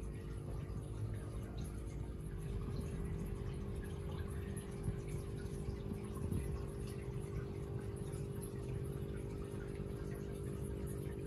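Aquarium water pump running with a steady hum, and water trickling and dripping in the tank.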